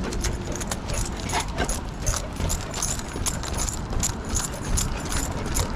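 Light, irregular metallic clicking and jingling from the leash clasp and collar hardware of a pit bull walking on a retractable leash, over a low steady rumble.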